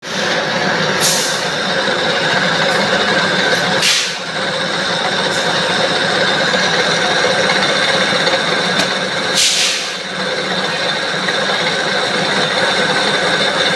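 Metalworking machine running steadily with a hum and whine, with three short hissing bursts about 1, 4 and 9.5 seconds in.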